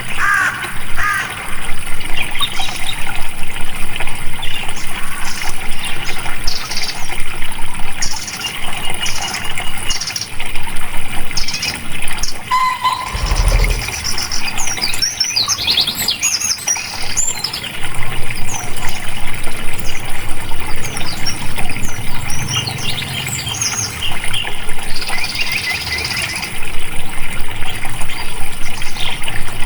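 Water flowing steadily, with birds chirping repeatedly over it. A brief low thump comes about halfway through.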